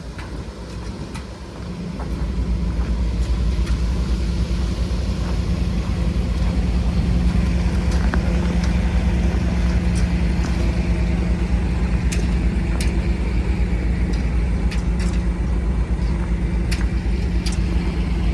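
A heavy engine running steadily, typical of concrete-pouring machinery such as a mixer truck or concrete pump. It gets louder about two seconds in and then holds, with scattered sharp clicks and knocks over it.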